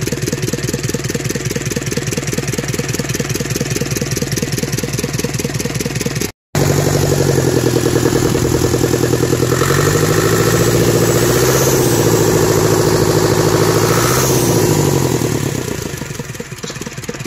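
Ursus 1014 four-cylinder diesel tractor engine running with the rocker cover off, so the valvetrain is exposed. It idles steadily at first; after a short break it is revved up, held for a few seconds, and let back down to idle before fading out near the end.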